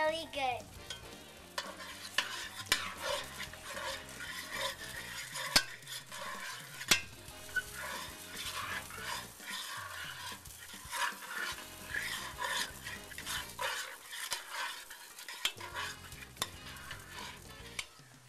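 A spoon stirring and scraping through chopped onions, peppers and tomatoes in a heavy enamelled pot on a gas grill, the vegetables sizzling as they sauté. Irregular small clicks of the spoon on the pot, with two sharper knocks about five and a half and seven seconds in.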